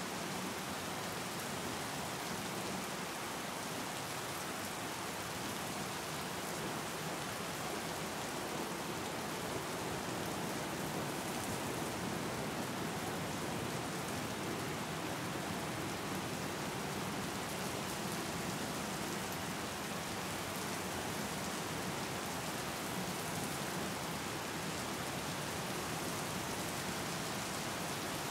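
Steady rain: an even, unbroken hiss of falling drops with no change in strength.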